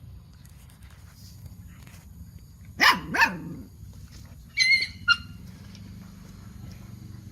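Dog barking twice in quick succession, each bark falling in pitch, then two short high-pitched yelps a moment later.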